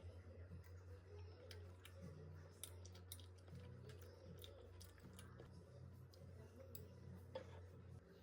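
Near silence: a steady low hum with scattered faint clicks, one at the very start and another about seven seconds in.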